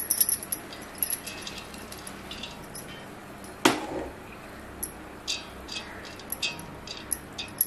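Cooked rice being tipped from a steel bowl into an aluminium pot and spread with a metal spoon: light scattered clicks and scrapes, one sharp clink about three and a half seconds in, then a run of short spoon scrapes against the pot.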